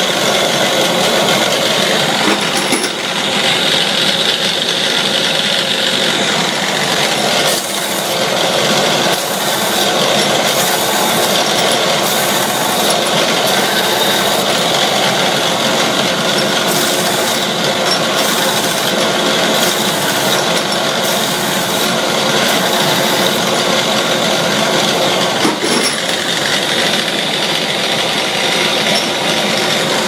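Metalworking factory machinery running steadily and loudly, with a continuous metallic clatter and rattle over the drone.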